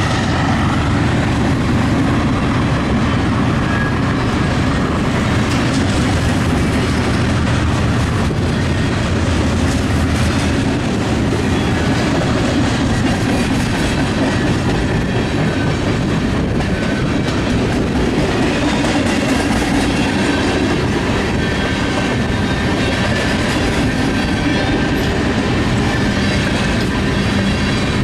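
Freight cars of a manifest freight train rolling past steadily, steel wheels clacking over the rail joints, with a faint high squeal of wheels now and then.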